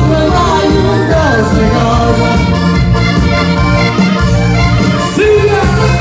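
Live Portuguese popular dance music from a band: a steady beat under an accordion-style melody, with some singing.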